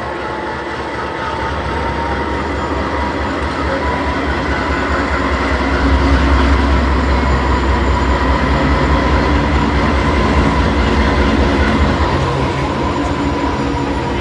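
Diesel locomotives of a CSX freight train passing close by, a heavy engine rumble that builds and is loudest about halfway through, easing slightly near the end. A steady high tone rings over the rumble throughout.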